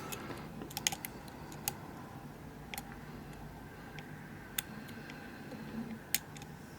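A lock pick working the pin stacks of a Kibblock Euro cylinder: about half a dozen light, sharp clicks at irregular intervals as pins are lifted and set under light tension.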